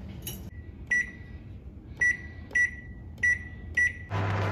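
Microwave oven's keypad beeping five times as the buttons are pressed to set a 3-minute cook. Near the end the oven starts running with a steady low hum.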